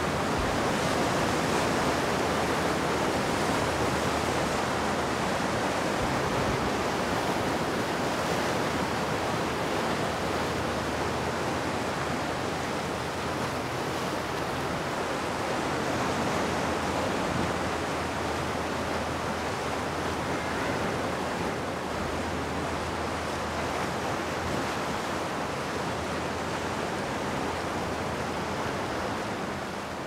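Sea surf washing and breaking over the granite boulders of a rocky shore, waves striking at many points along the rocks and blending into one steady, unbroken wash with only slight swells in level.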